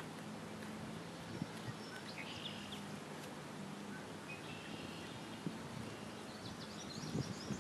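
Outdoor ambience: a steady background hiss with faint, distant small-bird chirps and twitters coming now and then, and a few soft clicks and rustles.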